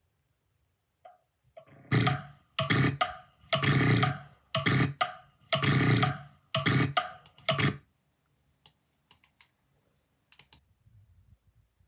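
A person's voice making a rapid run of loud, rough bursts lasting about six seconds, followed by a few faint clicks.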